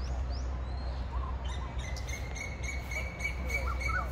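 Birds calling: a few quick rising whistles and chirps, then a fast, even run of short repeated notes starting about a second and a half in, over a steady low rumble.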